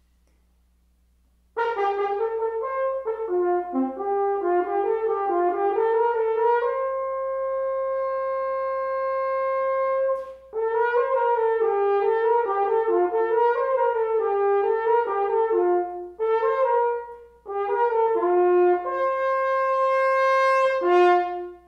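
Solo French horn playing an orchestral audition excerpt unaccompanied. It comes in after a second and a half of silence with a run of notes, holds one long note in the middle, then plays further phrases broken by short breaths and ends on a held note.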